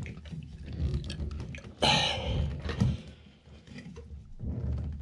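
Chrome bathtub spout being twisted by hand onto its threaded pipe: low handling rumble with small scrapes and clicks of metal and hand against it. About two seconds in comes a short, loud, breathy sound.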